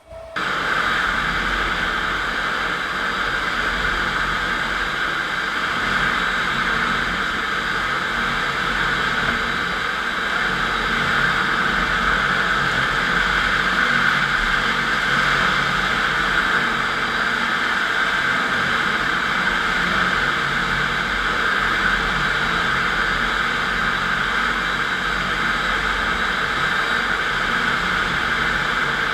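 Electric concrete floor grinder running steadily, its 16-grit diamond grinding plates cutting the concrete surface: an even, unbroken machine noise that cuts in sharply just after the start.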